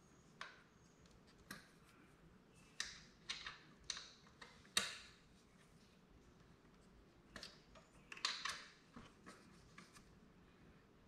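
Hands working a tightly secured part loose on a Razor Dirt Quad electric ATV: faint scattered clicks, taps and scrapes, the sharpest about five seconds in and a short cluster around eight seconds.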